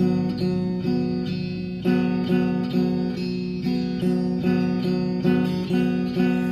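Guitar strumming the same chord over and over in a steady rhythm, about two strums a second.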